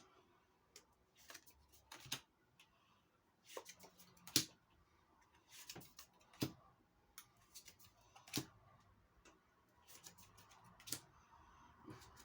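Pokémon trading cards being handled and slid apart one by one from a freshly opened booster pack: faint, irregular clicks and taps, a dozen or so spread out with quiet between.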